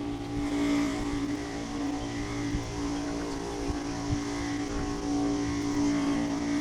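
Electric bucket sprayer's pump running with a steady hum while spraying paver sealer.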